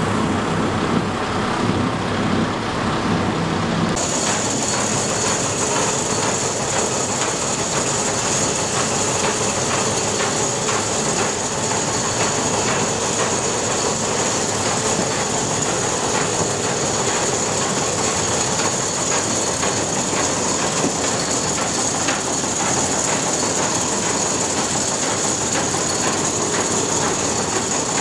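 Old grain mill's belt-driven line shafts, pulleys and milling machinery running, a loud, steady clattering rattle. About four seconds in, the sound shifts to a brighter clatter with a steady high whine over it.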